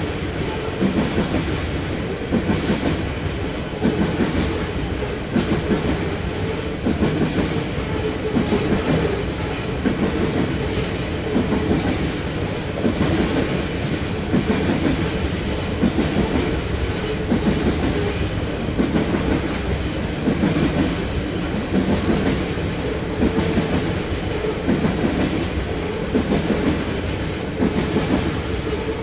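Loaded coal hopper cars of a freight train rolling past, the wheels clacking over rail joints in a steady, repeating rhythm.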